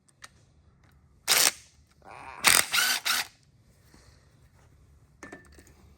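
Tool work on a partly dismantled LS1 V8: a few short, sharp mechanical bursts about a second and a half in and again around two and a half to three seconds in, with faint clicks near the end.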